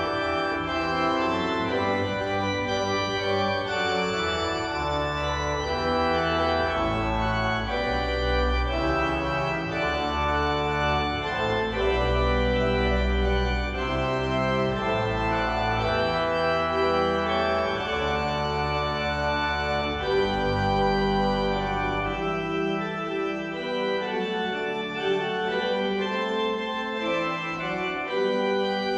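A 55-rank Möller pipe organ playing a Baroque prelude in full, sustained chords, with deep pedal bass notes that drop out about three-quarters of the way through.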